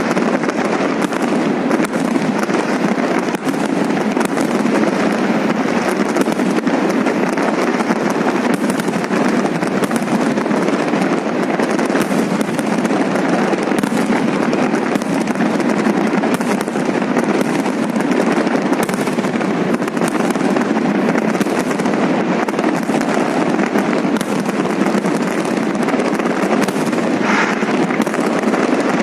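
Fireworks display going off continuously: a dense, unbroken stream of crackles and sharp pops at a steady, loud level.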